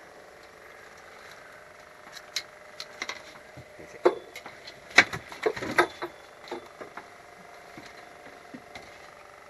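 A run of irregular sharp knocks and clatter, like hard objects striking wood, loudest about halfway through, over a faint steady hum.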